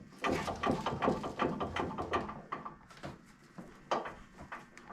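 Irregular knocks, clicks and light rattles from hands working on an old Craftsman table saw, with the saw not running.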